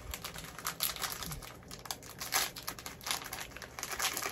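Plastic snack wrapper crinkling and crackling in quick, irregular clicks as it is handled and worked open by hand.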